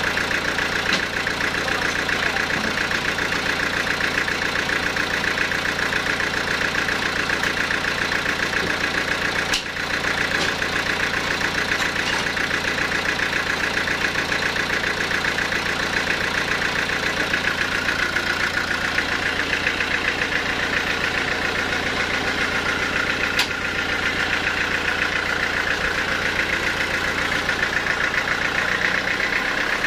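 Large band sawmill running steadily, its motor and band blade making a continuous mechanical hum, a little brighter in the second half.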